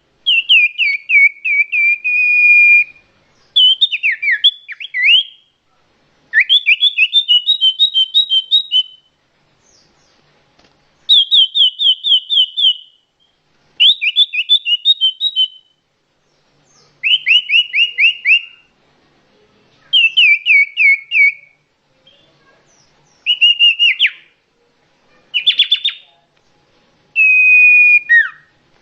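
Common iora (cipoh) singing: short phrases of rapid, clear notes, some sweeping downward and some in quick repeated strokes. The phrases repeat about every two to three seconds with brief pauses between them.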